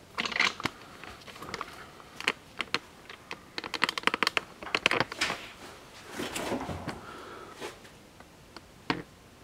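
Handling noise: a fast run of light clicks and taps, then a short rustling scrape about six seconds in and one more click near the end, as a hand handles the model's cardboard display base.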